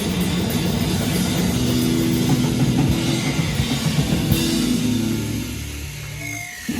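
Live rock band playing loud, with drum kit and electric guitar. The playing thins out and drops in level about five seconds in.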